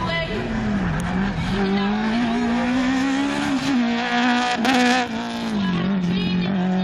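Small rally hatchback's engine revving hard through a cone slalom. The pitch dips briefly twice as the driver lifts, climbs steadily, then falls back and holds lower near the end.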